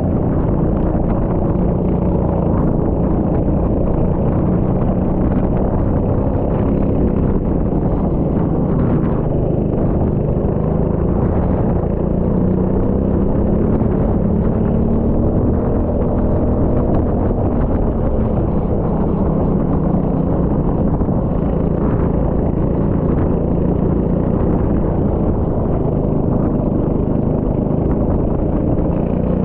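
Rental go-kart engine running steadily under load, its pitch slowly rising and falling as the kart speeds up and slows through the corners.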